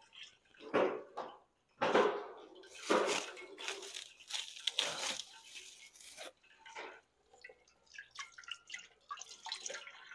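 Kitchen tap running into a stainless-steel sink while carrots are rinsed under the stream, the water splashing unevenly off them and the hands. The splashing is loudest from about two to six seconds in.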